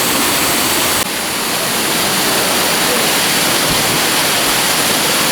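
Waterfall water rushing, a loud steady hiss; its tone changes abruptly about a second in.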